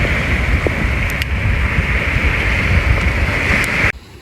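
Sea waves washing on the beach, mixed with heavy wind rumble on the microphone. The sound cuts off abruptly near the end.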